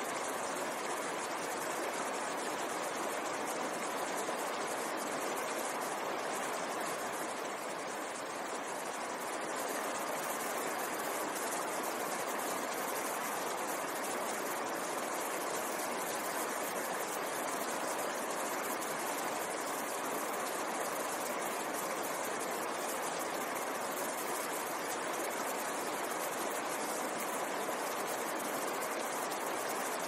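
Mountain stream rushing over boulders: a steady, unbroken rush of white water.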